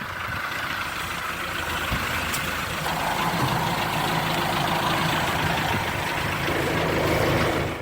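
A truck engine running steadily at idle, with a hiss over it that grows louder about three seconds in.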